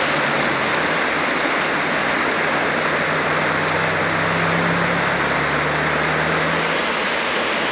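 Floodwater rushing through a swollen creek channel: a steady, loud rush of water. A low hum runs under it from about a second in until near the end.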